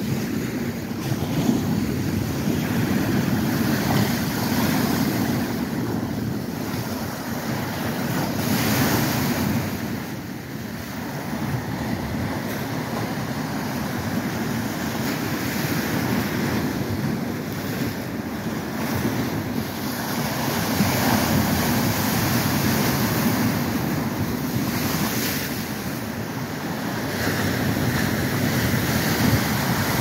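Lake Superior waves breaking and washing against an ice-crusted shore, a steady rushing surf that swells and eases as each wave comes in, with wind blowing across the microphone.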